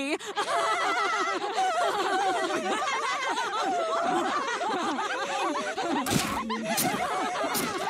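Group of cartoon women laughing together: several voices cackling and giggling at once. A few sharp breathy bursts come in about six seconds in.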